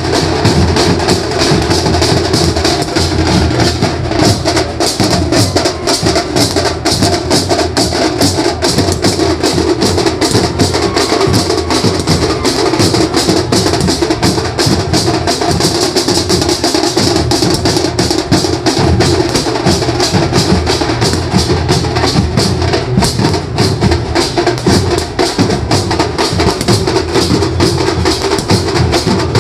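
Maharashtrian banjo band playing a fast, loud, percussion-heavy piece: dense quick drum and cymbal strokes over a steady melodic line, without a break.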